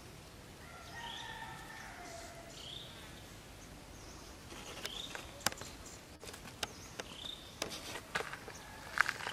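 Macaques moving over dry ground and leaves: sharp clicks and crackles from about halfway through, loudest near the end. Under them run short high chirps every second or two, and a brief falling call comes about a second in.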